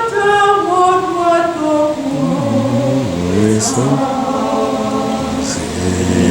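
A church congregation singing a slow hymn together, holding long notes. Lower voices come in about two seconds in.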